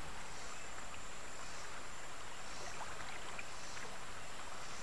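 Steady wash of river water moving around a sit-on-top kayak on the water.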